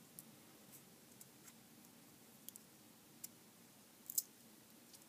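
Faint, scattered small clicks and ticks as fingers pick at and peel sticky tape off a tiny flashlight circuit module, against near silence; the loudest click comes about four seconds in.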